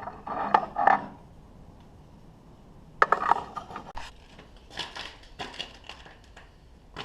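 Scattered metal clinks and scrapes in short clusters, near the start, about three seconds in and again around five seconds: a steel bar and blacksmith tongs being handled at the forge.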